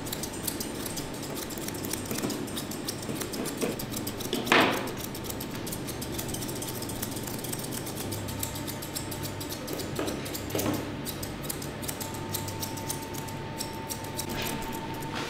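Grooming scissors snipping through a ragdoll cat's long fur: many quick, light metal clicks. A short louder knock comes about four and a half seconds in, and a faint steady hum joins near the end.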